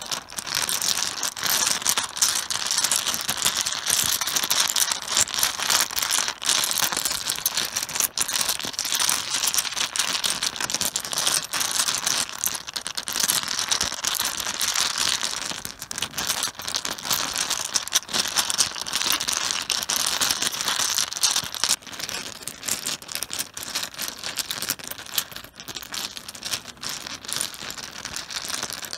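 Mahjong tiles being mixed by hand on a cloth-covered table: a dense, continuous clatter of small clacks as the tiles knock together. It eases a little after about twenty seconds.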